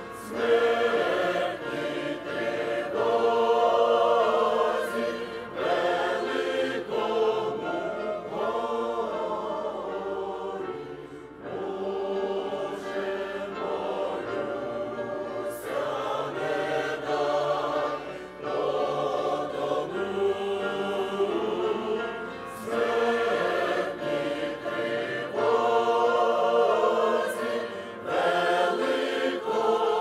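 Mixed church choir of men's and women's voices singing a Ukrainian hymn, line by line with brief breaks between phrases.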